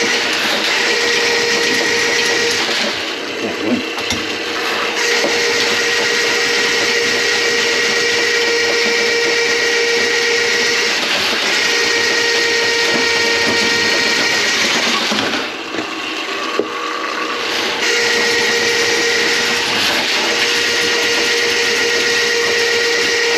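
Electric drain-cleaning machine running with a steady whine, clearing a grease-clogged kitchen drain line; the motor cuts out twice for about two seconds and starts again.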